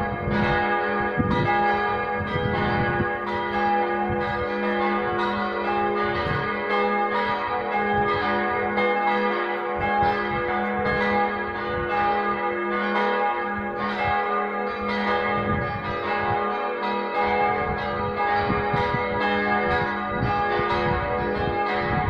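Four of the five church bells in a Catholic church tower ringing together in a partial peal, their strikes overlapping continuously over a sustained hum of ringing tones.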